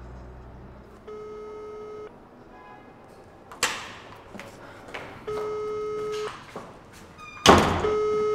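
Electronic telephone ringing: a steady single-note beep about a second long, three times. Two sharp knocks fall between the rings, the second, just before the last ring, the loudest.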